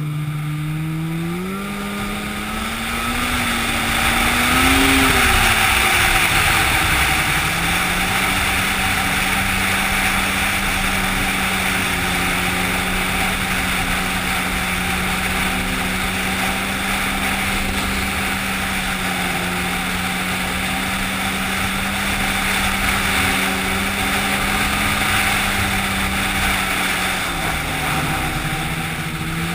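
An engine revving up in the first few seconds and then running steadily at high speed over a loud hiss, dropping back briefly near the end.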